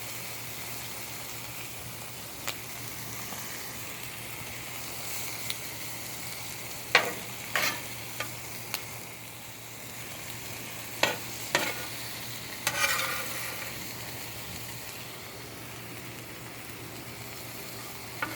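Pepperoni, zucchini, mushrooms and onions sizzling on a hot gas griddle, a steady frying hiss. Several sharp clicks and scrapes of a utensil on the griddle cut in, with a longer scrape about 13 seconds in.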